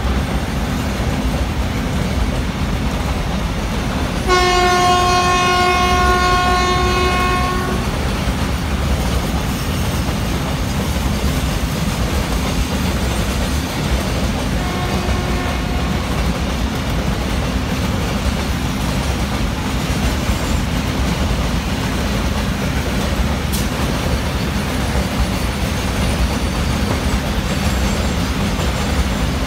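Container freight train rolling past at speed, its wagons rumbling and clattering steadily over the rail joints. About four seconds in, the electric locomotive's horn sounds one long blast of about three seconds, and a faint shorter blast comes about fifteen seconds in.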